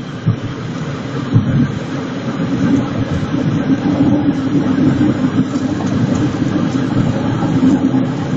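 Car engine and road noise while driving, a steady low rumble that grows a little louder about two and a half seconds in, with two thumps about a second apart near the start.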